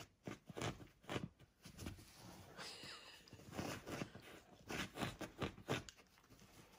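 A puppy pawing and digging at the bedding to make itself a bed: irregular rustling and scratching of sheets and blanket, in quick uneven strokes.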